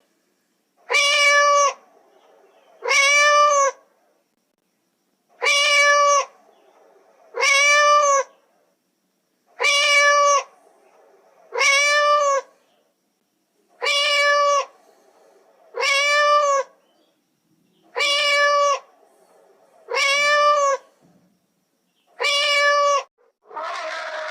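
A cat meowing eleven times, mostly in pairs about two seconds apart, each meow a clear call under a second long that rises and falls in pitch. A different, harsher sound starts near the end.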